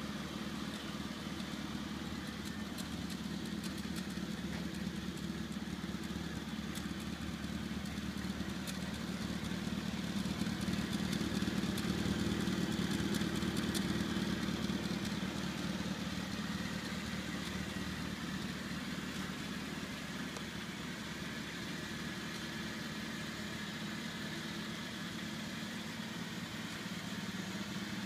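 1998 Rover Mini Cooper's 1275 cc A-series four-cylinder engine idling steadily through its single tailpipe, louder for a few seconds around the middle.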